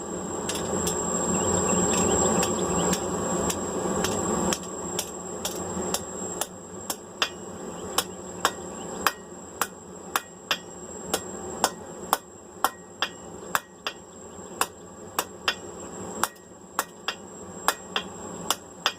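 Hand hammer striking hot rebar on an anvil, about two blows a second, folding the bar back on itself. A steady rushing noise stops about four and a half seconds in, and a thin steady high whine runs under the blows.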